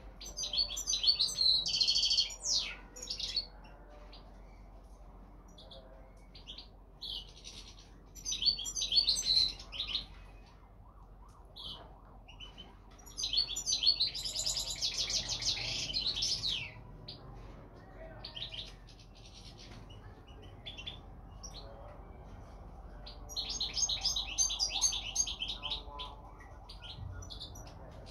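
European goldfinch, parva race, singing: bouts of fast, high twittering a few seconds apart, with short chirps between them. The longest bout comes about halfway through.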